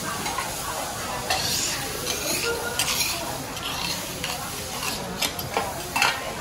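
Food sizzling on a teppanyaki griddle while metal spatulas stir, scrape and clink against the hot plate, with several short, louder strokes spread through it.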